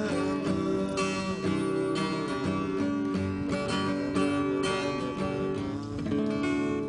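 Nylon-string classical guitar played with the fingers: a continuous run of plucked notes and chords.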